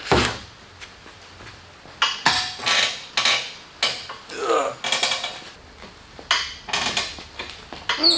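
Manual tubing bender working a steel tube as its long handle is pulled: a series of short metallic creaks and clanks, about two a second, with a brief falling squeal about halfway through.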